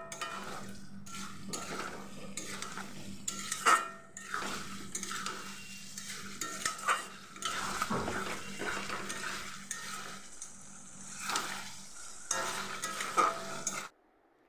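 A spatula stirring and scraping potatoes and spice paste in a kadai, with irregular scrapes and knocks against the pan over a continuous sizzle as the masala fries over medium-to-high heat. The sound cuts out abruptly just before the end.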